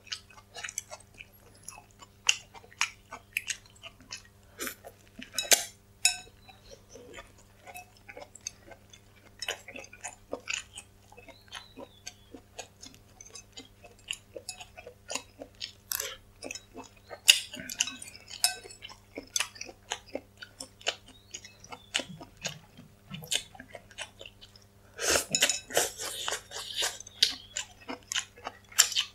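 Close-miked chewing and wet mouth sounds of a person eating noodle soup, with many short, sharp clicks and smacks. Near the end comes a longer, denser run of noise as noodles are slurped in.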